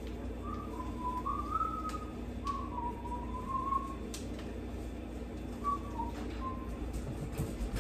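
A person whistling a short, wavering tune for about three seconds, then a couple of brief notes later on, over a steady low hum and a few light clicks.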